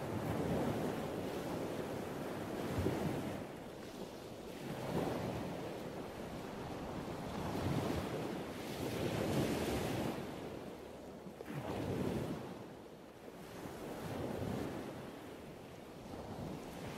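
Rushing noise of wind and sea, with no engine tone heard: a hiss that swells and fades every two to three seconds, like waves washing and gusts of wind.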